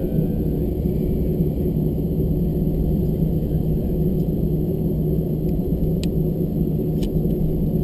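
Inside the cabin of an Airbus A321 taxiing: a steady low rumble of its CFM56 engines at taxi power, with a constant hum. Two faint clicks about six and seven seconds in.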